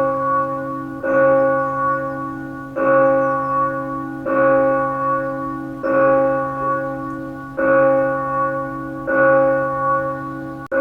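Church bell tolling: a steady series of strikes about one and a half seconds apart, each ringing on into the next.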